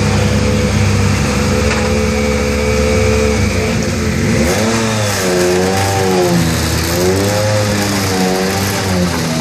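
Citroën DS3 rally car's turbocharged engine idling steadily, then revved up and down in repeated swells from about halfway through as the car pulls out of its service bay.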